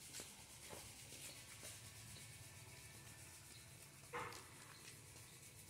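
Near silence: faint rubbing and scuffing over a low steady hum, with one brief louder sound about four seconds in.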